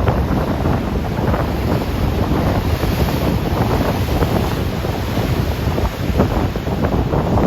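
Rough ocean waves churning and breaking, with wind buffeting the microphone as a steady low rumble.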